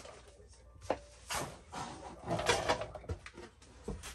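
Solid wooden furniture being shifted and handled by hand: a series of sharp wooden knocks and clatters with rustling, scraping noise, loudest in the middle.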